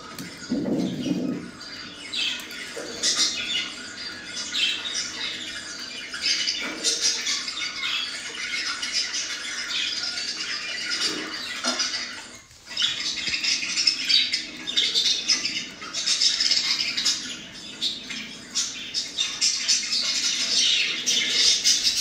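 Budgerigars chattering: a busy, unbroken stream of fast high chirps, warbles and squawks from several birds together. It stops for a moment about halfway, then picks up again.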